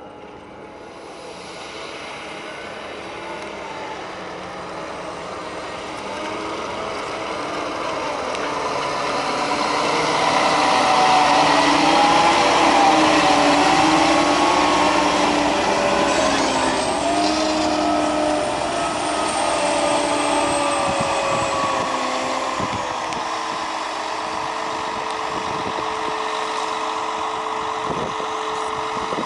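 PistenBully 600 snow groomer's diesel engine and tracks running. The sound grows louder as the machine comes close about halfway through, with the engine pitch rising and falling. It then eases into a steadier note as the groomer works further away.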